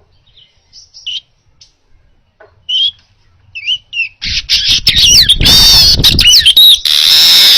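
Manyar weaver bird singing: a few scattered short chirps, then about four seconds in a loud, fast run of sharply rising and falling notes, ending in a held buzzy note.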